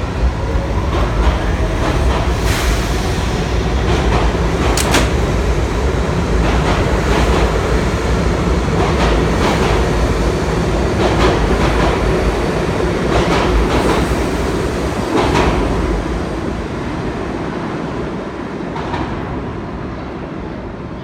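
New York City subway train running along the station platform: a loud steady rumble of wheels on rail, broken by repeated sharp clacks. The sound fades away over the last few seconds.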